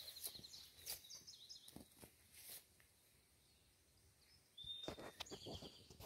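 Faint songbird song, a high held note running into a fast trill, ending about half a second in and sung again near five seconds. A few scattered footsteps on the trail are heard between the songs.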